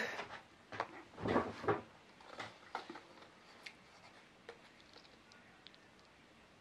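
Knocks and clicks of makeup containers being handled and set down, busiest in the first two seconds, then a few faint scattered clicks.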